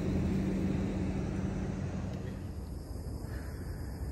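A motor's low, steady hum with a deep rumble under it, fading away over the first couple of seconds as the vehicle passes and moves off.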